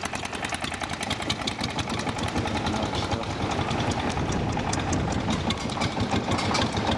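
A wooden motorboat's engine running steadily at cruising speed, a fast, even chugging.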